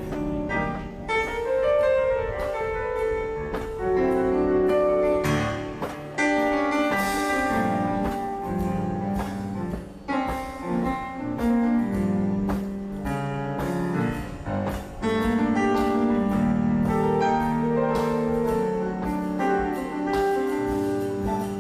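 Instrumental band music at a sound check, led by keyboard chords with sustained notes and no singing.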